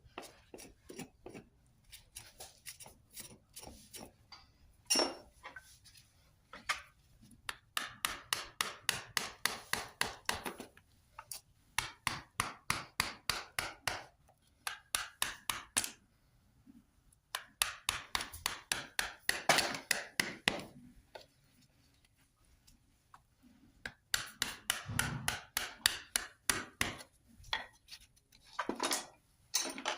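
Farrier's rasp filing a horse's hoof: runs of quick, even rasping strokes, several a second, broken by short pauses.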